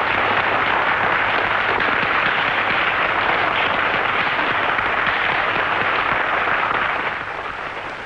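An audience applauding: a steady, dense clatter of many hands clapping that dies away near the end.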